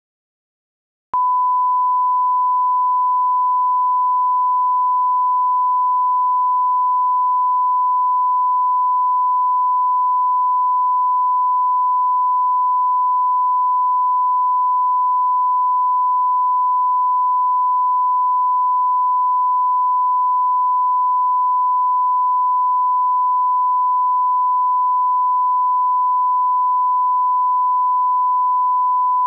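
Steady 1 kHz reference test tone, the line-up tone that goes with television colour bars. It starts suddenly about a second in, after silence.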